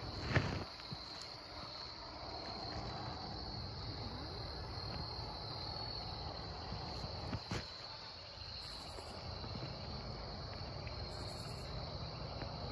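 Steady, high-pitched insect chorus, one unbroken drone, over a low rumble, with two brief knocks: one about half a second in and one past the middle.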